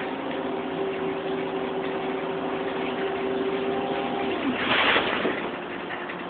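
Ikarus-bodied DAF bus running with a steady engine and driveline whine. About four seconds in, the whine drops in pitch and a short loud hiss-like burst follows, after which the running noise is a little quieter.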